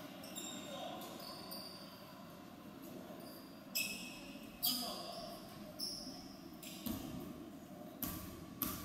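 Basketball bouncing on a hardwood gym floor, a handful of sharp hits spread through the second half, over a steady murmur of voices in the echoing gym.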